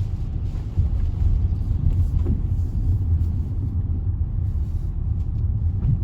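Low, steady road and engine rumble inside the cabin of a moving Range Rover.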